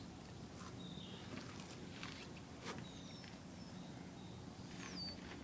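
Birds calling: high whistled notes that slide down in pitch, one about three seconds in and a louder one near the end, with short high notes between them. A few faint clicks over a low background hiss.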